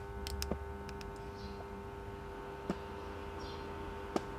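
A microwave-oven transformer, used as a resistance soldering machine, buzzing steadily under load as current heats a copper pipe joint red hot between its electrodes. A few sharp clicks come in the first half-second, with single ones near the middle and near the end.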